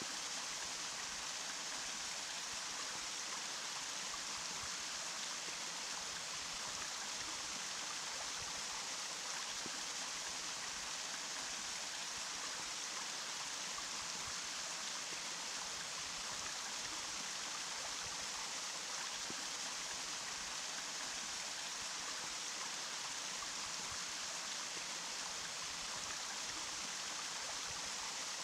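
Running water rushing steadily, an even, bright hiss with little low rumble and no change.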